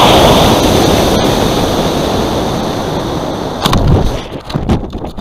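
Model rocket motor burning, heard from a camera riding on the rocket: a loud, even rushing noise that slowly fades as the rocket climbs. About three and a half seconds in it ends in a sharp crack, followed by gusty wind noise on the microphone.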